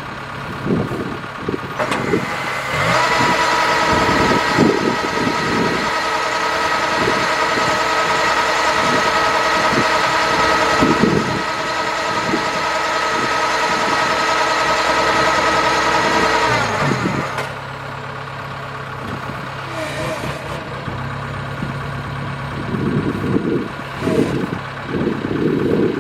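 Kubota DC-70 Plus combine harvester running. About two seconds in it rises to a higher, steady working speed with a whine, then drops back to a lower running speed about seventeen seconds in, with irregular low knocking throughout.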